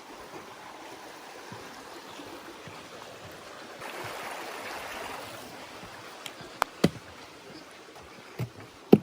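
Steady rushing outdoor noise that swells for a second or two midway, with a few sharp clicks in the last few seconds.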